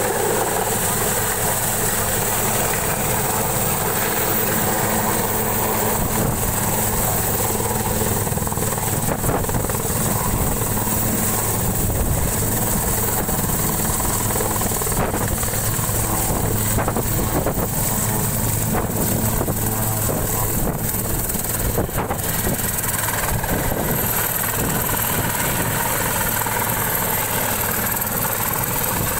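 Helicopter descending and setting down, its turbine engine and rotor running with a steady high whine over the rotor noise.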